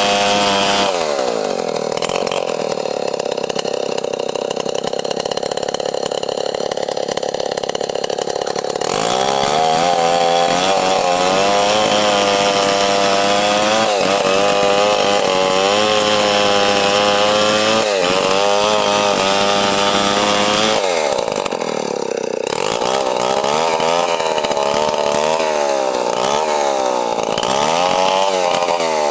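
Stihl 070 two-stroke chainsaw running hard while sawing lengthwise through a log, its engine pitch wavering up and down under load. The pitch dips sharply about a second in and again about three-quarters of the way through.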